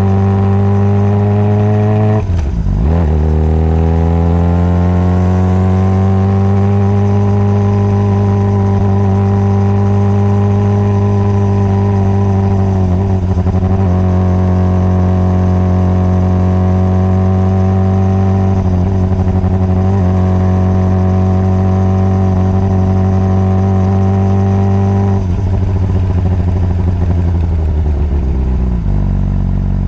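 Honda CBR600RR's inline-four engine under way: revs climb, drop sharply at a gear change about two seconds in, climb again, then hold steady at cruise. Near the end the throttle closes and the engine winds down to lower revs.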